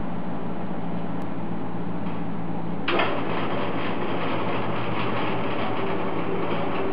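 Metal-cutting bandsaw running with a steady motor hum. About three seconds in, the blade starts cutting through half-inch 304 stainless steel plate and a steady cutting noise joins the hum.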